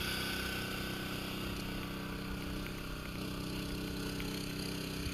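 Steady machine hum with a low buzz from the electrofishing rig's power unit, running without change while the electrode is swept through the water.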